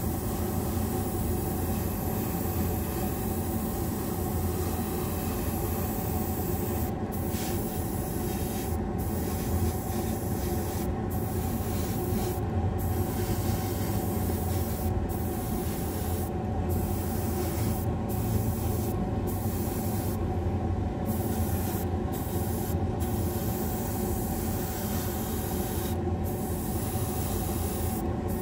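Airbrush hissing as it sprays paint, cut off briefly many times from about a quarter of the way in as the trigger is let go between passes, over the steady hum of a spray booth's extractor fan.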